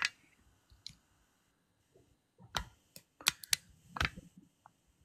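A handful of short clicks and taps, spaced unevenly over a few seconds with near silence between them: handling noise from a phone being held and tapped.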